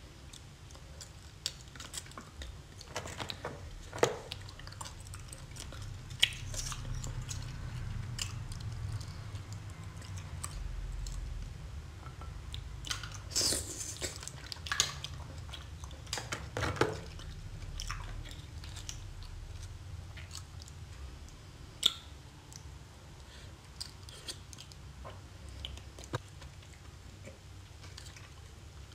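Close-miked chewing and wet mouth sounds of a person eating sauce-coated whelks, broken by scattered sharp clicks of a metal pick against the shells.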